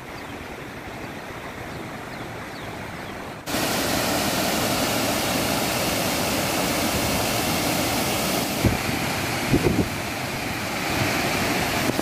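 Floodwater pouring over a dam's concrete spillway onto a row of baffle blocks: a loud, steady rush of water that comes in suddenly about three and a half seconds in, after a quieter steady outdoor hiss. Two brief low wind thumps on the microphone come near the end.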